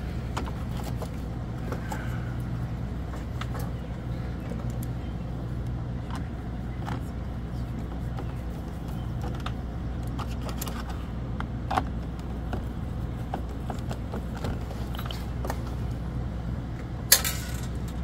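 Small clicks and taps of an RV door lock's parts being fitted and handled, over a steady low hum. Near the end a sharp metallic clink, a bolt being dropped.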